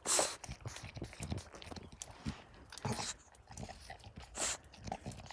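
French bulldog crunching and chewing snow as it eats it from a hand: irregular small crackling bites, with a few louder breathy hissing bursts, the loudest right at the start.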